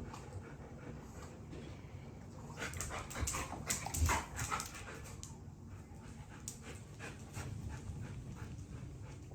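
A dog panting in short repeated breaths, with a louder run of noisy breaths and whimpers between about three and five seconds in.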